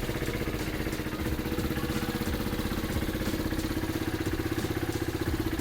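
KTM Duke 390's 373 cc single-cylinder engine idling steadily in an even, fast pulse, just after its first start following a year parked. It runs with what the owner calls an awkward, weird noise from the engine.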